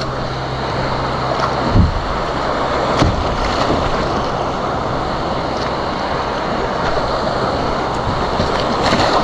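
Ocean surf rushing and breaking around kayaks in the shore break, with wind buffeting the microphone. Two short knocks about two and three seconds in.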